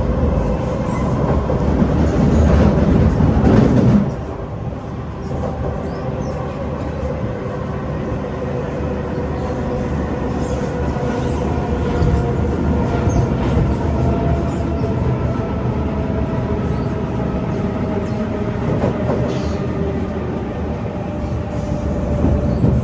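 SMRT C151 metro train running between stations: a dense rumble of wheels on the track with thin tonal whines, some sliding slowly in pitch. A heavier rumble in the first four seconds drops off abruptly.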